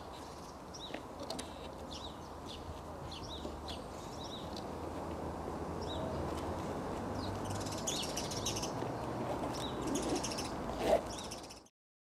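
Small birds chirping and tweeting, scattered short calls over a steady outdoor background hiss, with one brief louder rising sound near the end; everything cuts off abruptly just before the end.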